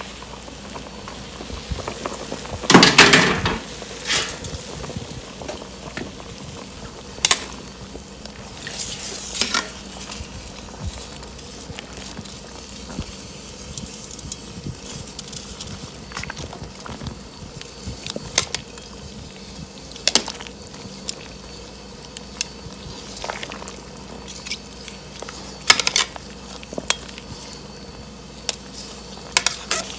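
A whole chicken boiling in a large aluminium stockpot: steady bubbling of the broth. Metal tongs clink and knock against the pot now and then, loudest about three seconds in.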